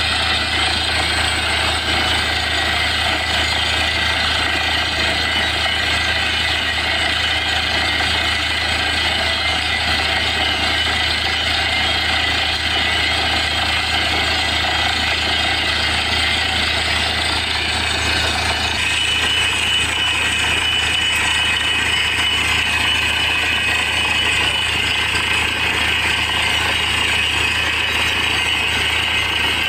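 Truck-mounted borewell drilling rig running steadily: its engine and compressed-air down-the-hole hammer at work while air blows water and slurry up out of the bore. About two-thirds of the way through the sound shifts and a steady high whine comes in.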